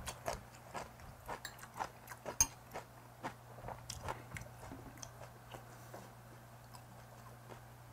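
Close-up mouth sounds of chewing and crunching a mouthful of Korean side dishes, with short clicks of metal chopsticks against the dishes; the clicks and smacks come thick for the first five seconds, then thin out. A faint steady low hum runs underneath.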